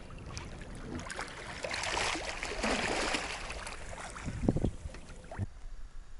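Water splashing and sloshing right at the camera as it rides at the river surface, with a few heavier splashes about four and a half seconds in. Near the end the sound turns dull and muffled as the camera goes under water.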